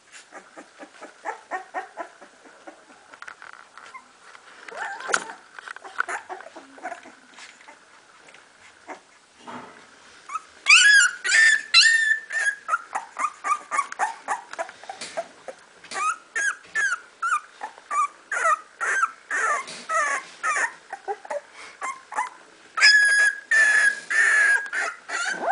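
A very young puppy whimpering and yelping. Soft, faint whimpers come first; from about ten seconds in there is a long run of loud, high-pitched cries that rise and fall in pitch, with a longer whine near the end.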